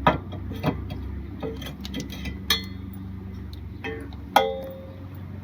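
Metal clanks and clinks with short ringing tones, about six separate knocks with the loudest near the end, as an unbolted exhaust pipe section is worked off the underside of the car. A steady low hum runs underneath.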